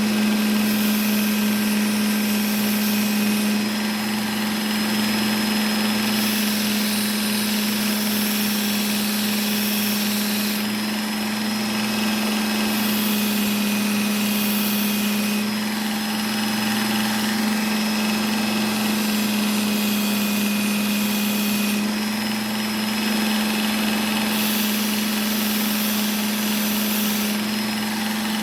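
Work Sharp Ken Onion Edition belt sharpener running steadily with its fine 1200-grit belt, a steady motor hum throughout. A whittling knife blade is drawn across the moving belt in about five passes of two to four seconds each, each pass adding a high hiss over the hum.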